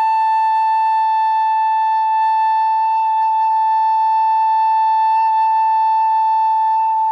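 Bamboo pífano (Brazilian transverse fife) holding one long, steady note as a long-tone exercise, stopping just before the end.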